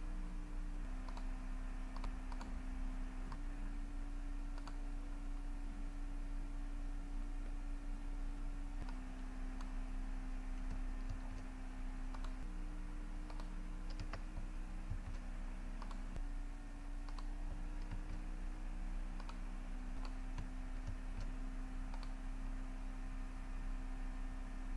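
Scattered computer keyboard keystrokes and mouse clicks over a steady low electrical hum.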